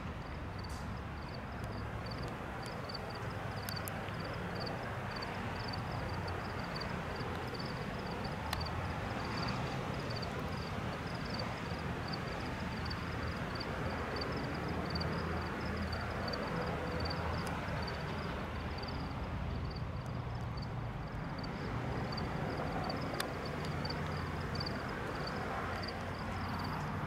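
Freight train in a rail yard: a steady low rumble of rolling cars and engine noise, with a faint high chirp repeating about twice a second over it.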